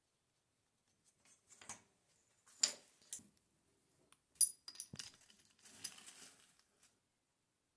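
Scattered small clicks and knocks of hand tools and a clamp being handled on a wooden workbench, with a few metallic clinks in the middle.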